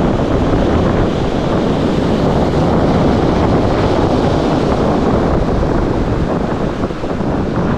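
Steady wind buffeting the microphone, mixed with the wash of surf breaking on the rocks.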